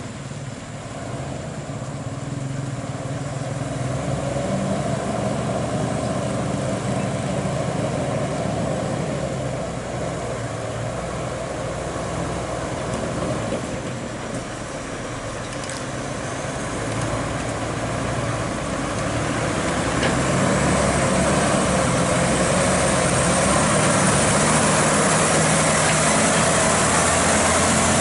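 Diesel engine of a Mitsubishi Fuso Super Great flatbed truck hauling a crawler excavator, running steadily as it drives slowly over a rough dirt road and grows louder as it comes up close, with a faint high whine rising over the last few seconds.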